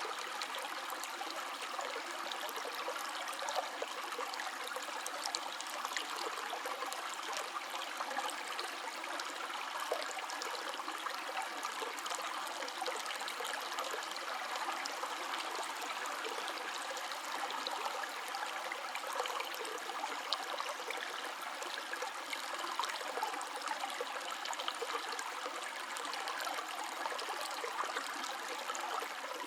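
River water flowing steadily over rocks, an even rushing babble with small splashes and trickles throughout.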